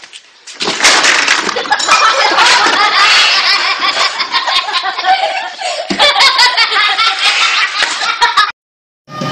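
Loud, sustained laughter that cuts off suddenly near the end.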